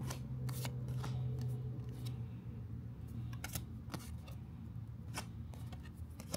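Disney Lorcana trading cards being flipped through by hand, one card slid from the back of the stack to the front after another: irregular short clicks and slides of card stock, over a low steady hum.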